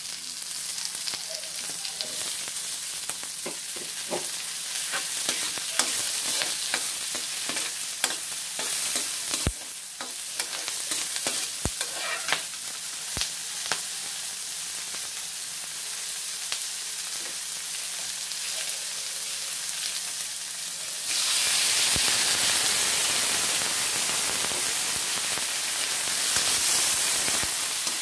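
Garlic, onion and red pepper sizzling in oil in an aluminium wok, with a metal spatula scraping and clicking against the pan as they are stirred. The sizzle turns suddenly louder about three-quarters of the way through.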